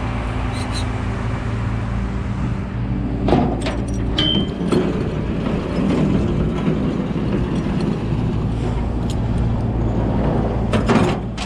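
Rollback tow truck's engine running steadily, with a few sharp knocks and a brief high tone about four seconds in.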